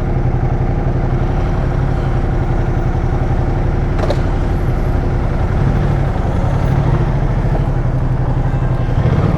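Ducati motorcycle engine running steadily under way, its note rising and falling a little.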